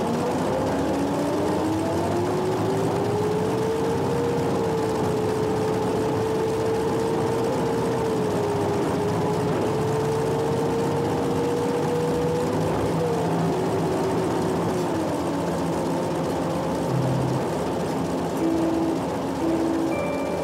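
Public-transit vehicle's motor whine over a steady rumble of the moving vehicle. The whine rises in pitch over the first few seconds as the vehicle speeds up and holds steady, then falls away about 13 seconds in as it slows.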